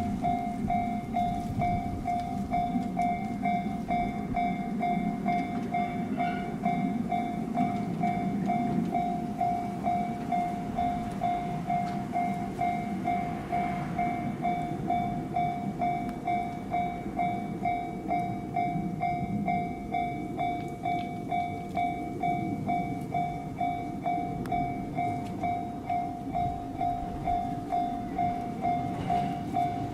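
Japanese railroad crossing warning bell dinging in a steady, even rhythm while the crossing is closed, with the low rumble of a train underneath.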